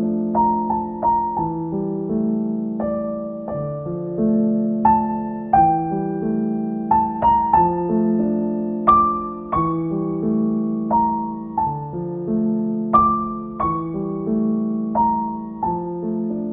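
Background piano music: a melody of single struck notes over held chords, each note fading after it is struck.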